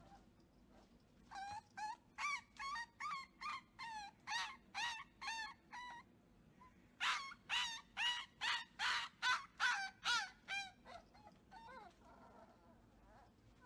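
Beagle puppy yipping in rapid high-pitched series, about two to three yips a second, in two runs with a short break around the middle; the second run is louder.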